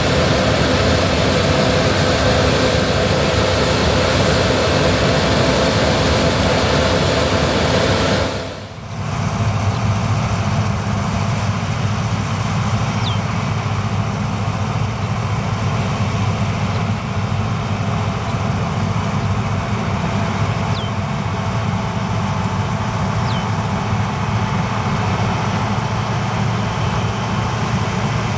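Gleaner R65 combine harvester running steadily, a dense mix of diesel engine and machinery noise. The sound dips briefly and changes character abruptly about eight and a half seconds in.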